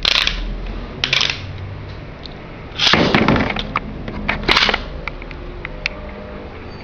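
A Tornado Leone Beyblade being launched and spinning on a hard surface, with a string of sharp clicks and clacks and short rasping bursts. The two loudest come about three seconds in and again about a second and a half later.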